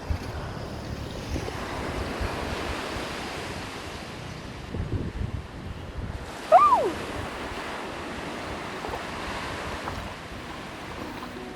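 Rough sea waves surging and washing onto the shore, with wind buffeting the microphone. About six and a half seconds in, a single short high call rises and then slides down in pitch.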